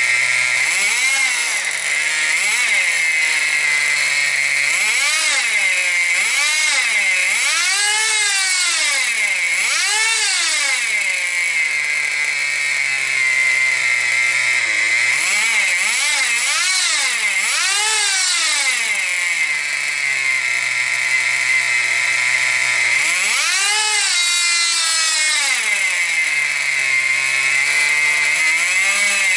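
Small nitro glow engine of a Tamiya TGX RC car running, settling to a steady idle between a dozen or so quick throttle blips that rise in pitch and drop back. It runs after a fuel-system overhaul.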